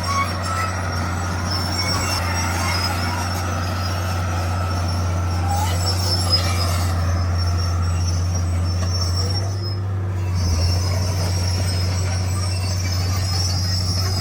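Komatsu D41 crawler bulldozer's diesel engine running steadily under work, with a constant low hum and faint high tones above it.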